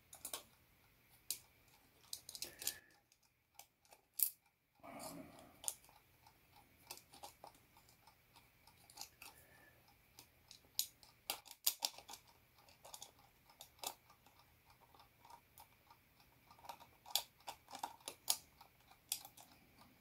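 Irregular small clicks and taps of metal and plastic alarm-clock parts being handled and fitted together on a tabletop, with a short quiet pause about three seconds in.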